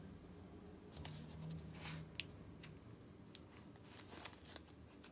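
Faint crunching and clicking from the rust-bound pivot of a jammed pair of pliers as gloved hands force the handles open and shut. The clicks begin about a second in, with one sharper click about two seconds in.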